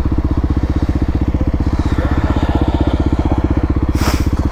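Kawasaki KLX300SM's single-cylinder four-stroke engine running at a steady speed, a fast even thumping that does not rise or fall. A short hiss about four seconds in.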